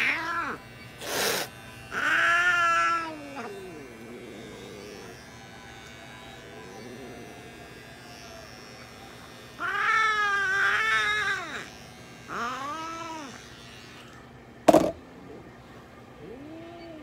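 Cat yowling in several long, drawn-out wails that rise and fall in pitch, the longest about two seconds, protesting at being held down for paw clipping. A short noisy burst about a second in and a sharp knock near the end.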